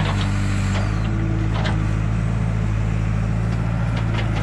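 Backhoe loader's diesel engine running steadily while working, with a few light knocks.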